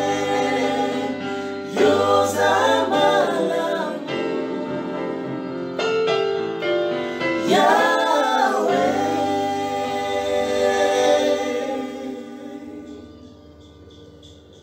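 Gospel worship song sung by a small vocal group of a woman and two men in harmony, with long held notes. The singing fades away near the end as the song closes.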